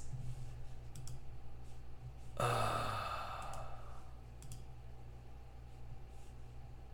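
A man sighs into a close microphone, one breathy exhale a little over two seconds in that fades away over about a second and a half, with a few faint clicks around it.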